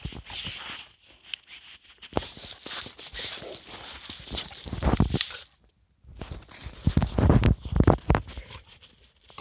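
A puppy scuffling and digging in snow with a stick in its mouth: crunching snow and scraping clicks. The sound cuts out for about half a second just past halfway. After the gap the crunching and thumps are heavier and louder.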